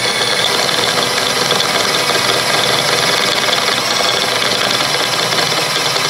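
Cordless drill running steadily under load, its twist bit enlarging a pilot hole in the flatbed deck.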